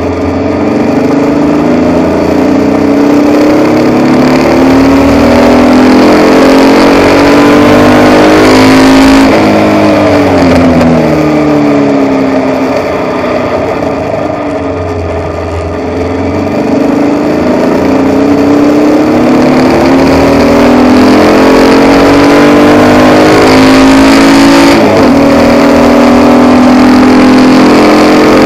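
A Formula Vee's air-cooled Volkswagen flat-four engine at racing revs, heard from the cockpit. The note climbs, then drops and falls away about nine seconds in as the car slows for a corner, runs lower and quieter for several seconds, and climbs again from about sixteen seconds before holding high.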